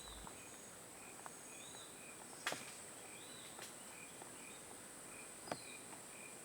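Faint tropical rainforest ambience: a steady high insect drone with a short chirp repeating about twice a second. Two sharp clicks stand out, about two and a half seconds and five and a half seconds in.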